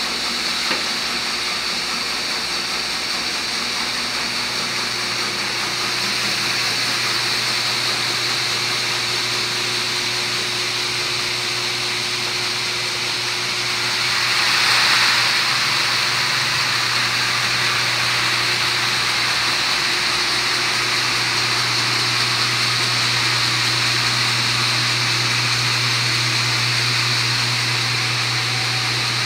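AT500H seed treating system running: steady motor and conveyor hum with a continuous mechanical hiss. About halfway through, a louder rushing swell as treated seed pours from the conveyor spout into a bulk box.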